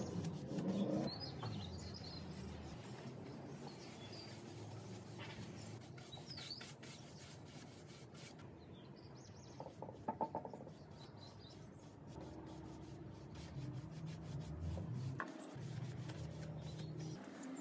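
A paintbrush's bristles brushing finish onto pine seat and table tops: a soft, scratchy rubbing made of many short strokes.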